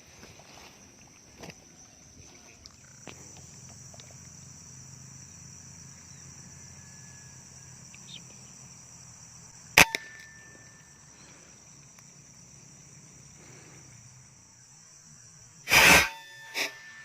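Steady high buzzing of crickets and other insects over the rice paddies. About ten seconds in comes a single sharp crack, an air-rifle shot, and near the end a louder, longer burst followed by a short click.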